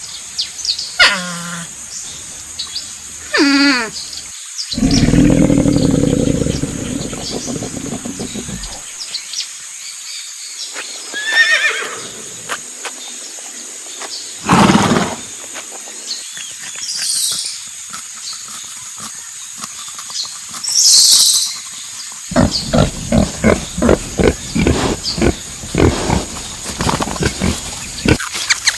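Farm animals calling one after another: two falling, wavering calls near the start, a long loud low rasping call, scattered shorter calls and bird chirps, and a rapid run of short calls near the end, over a steady high hiss.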